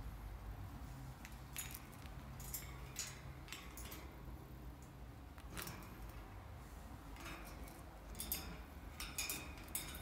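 Black-capped lory climbing about its wire cage, its claws and beak clicking and tapping on the metal bars in scattered sharp clicks, over a low steady hum.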